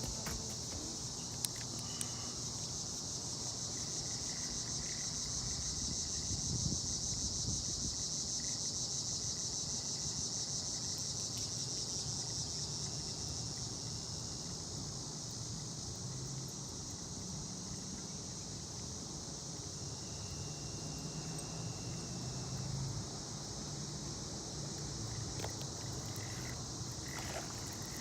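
Steady chorus of night insects, a high-pitched, fast pulsing trill that never lets up.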